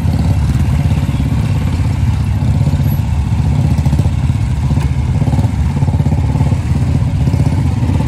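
Several Royal Enfield-style single-cylinder motorcycle engines running just above idle with a rapid, even beat as the bikes are ridden slowly at walking pace.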